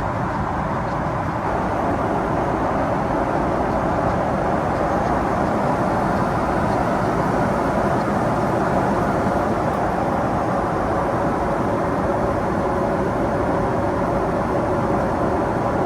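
Steady cabin noise of a Boeing 777-300ER airliner in flight: an even rush of engine and airflow noise inside the cabin, with no change throughout.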